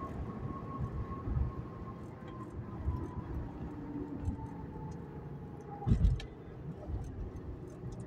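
Driving noise inside a 2011 Acura TL's cabin: a low engine and road rumble, with a faint tone that slowly falls in pitch as the car eases off. A heavy low thump comes about six seconds in.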